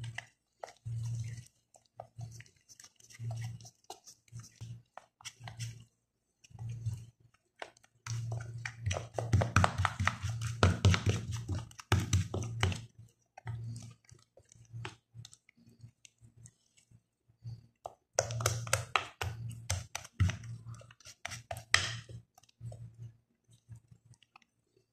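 Wooden spoon stirring and scraping a thick paste of ground sidr leaves in a ceramic plate: wet squishing with clicks of the spoon against the plate, in uneven strokes. There are two louder spells of fast mixing, one in the middle and one about three quarters of the way through.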